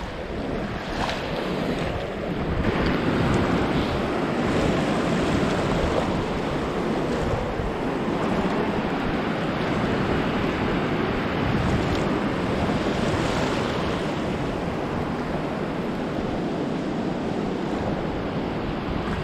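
Shallow sea surf washing steadily at the shoreline, with wind rushing over the microphone.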